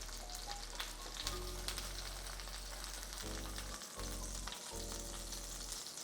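Breaded chicken cutlets frying in a pan of olive oil and butter, a steady sizzle with small crackles and pops. Low background music plays under it.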